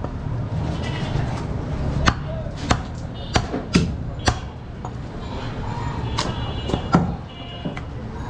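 Heavy butcher's knife chopping goat meat on a round wooden block: several sharp, irregularly spaced chops over a steady low background hum.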